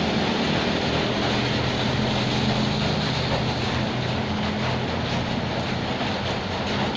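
Steady rain hiss over a low, continuous droning hum.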